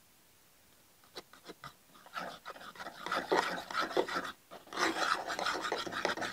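A metal spoon stirring ketchup and mayonnaise together in a wooden bowl. A few light clicks come about a second in, then rapid scraping strokes follow, with a brief pause near the middle.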